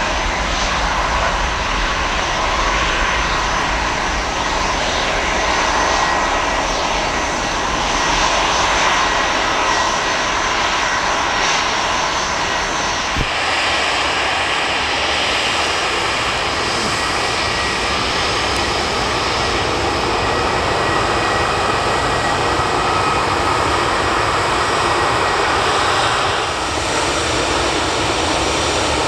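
Jet airliner engines running loud and steady at close range: first a Boeing 737, then, after an abrupt change about halfway through, an Airbus A319.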